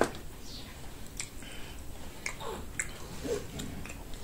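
Eating sounds: wet chewing and mouth smacks while rice and stew are picked up by hand, with scattered small clicks.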